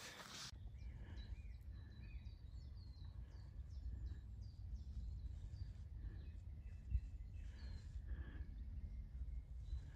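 Songbirds chirping and singing in many short notes, some gliding up or down, over a low steady rumble. A rustling noise cuts off about half a second in, and a single thump comes about seven seconds in.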